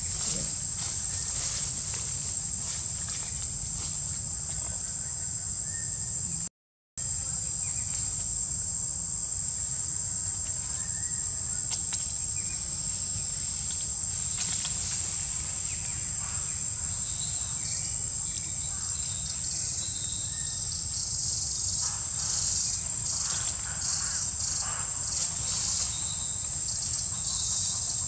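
Steady high-pitched drone of an insect chorus over a low rumble, with some patchy extra insect buzz in the later part. The sound cuts out completely for a moment about six and a half seconds in.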